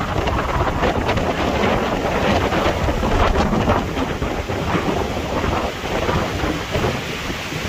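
Hurricane wind buffeting the microphone in rumbling gusts, over a steady rushing noise.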